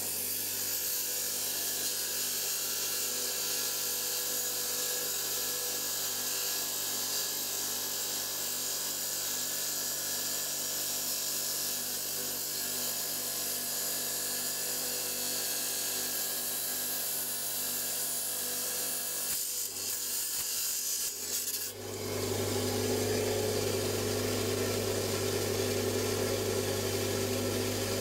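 Power rock saw with a diamond blade cutting through an agate, a steady hissing grind. About three-quarters of the way in the grinding falters, and the motor's steady hum takes over.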